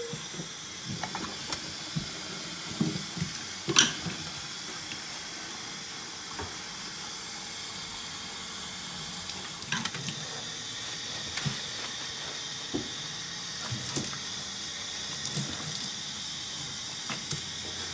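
Kitchen faucet running steadily into a stainless steel sink while a wet dog is rinsed under the stream, with scattered small knocks.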